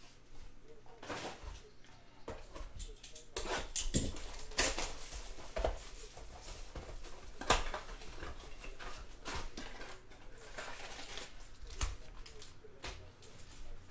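Retail card boxes and their plastic wrapping being handled on a table: irregular rustles, taps and knocks, with a few sharper knocks as boxes are set down.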